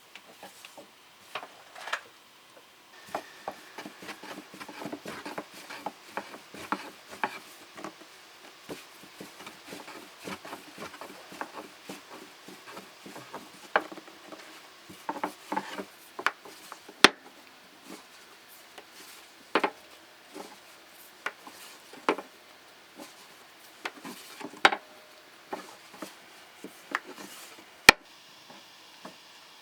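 Irregular clicks, scrapes and light knocks of food and utensils being handled on a wooden surface, with two sharper clacks louder than the rest, one just past the middle and one near the end.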